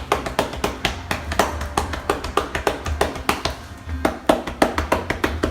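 Cupped hands clapping rapidly and evenly on a patient's back over the shoulder blades, about five or six strikes a second: chest percussion to loosen sticky mucus from the lower lobes of the lungs. Background music plays underneath.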